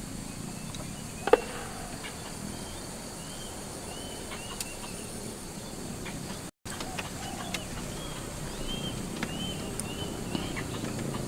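Outdoor lakeside ambience: a steady background hiss with small chirps repeating every second or so, scattered light clicks, and one sharp click about a second in. The sound cuts out for a moment at about six and a half seconds.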